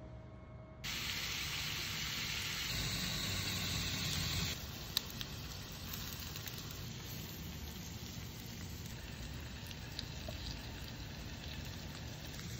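Wood-and-charcoal grill fire under a rotisserie chicken, sizzling and hissing steadily. It starts abruptly about a second in, is louder for the first few seconds, then settles lower, with a sharp pop about five seconds in.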